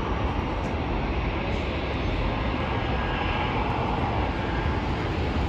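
Jet airliner's engines as the plane passes: a steady rushing noise with a faint high whine.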